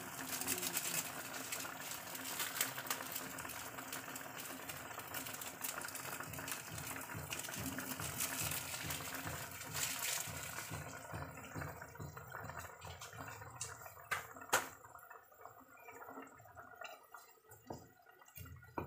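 Pork braising in soy sauce bubbling at a boil in a metal pot, a dense crackle of bubbles. About eleven seconds in the bubbling thins to scattered pops, with one sharp knock a few seconds later.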